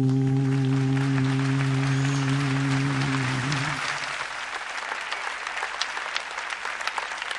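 A male singer's last long note, held at a steady pitch, fading out about three and a half seconds in, as a large audience's applause swells up under it and carries on.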